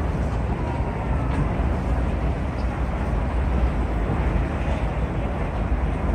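Steady low rumble of a moving ferry's engines mixed with wind rushing over the microphone on deck.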